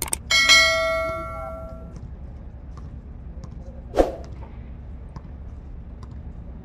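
Basketball striking the metal hoop rim: a sharp clang that rings on and dies away over about a second and a half. A single dull thump follows about four seconds in.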